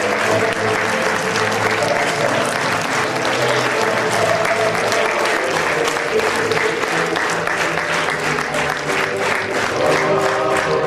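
Theatre audience applauding steadily, with music playing underneath.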